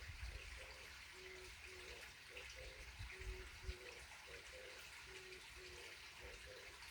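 A bird calling a phrase of short, low notes that repeats about every two seconds, over the faint steady trickle of running water.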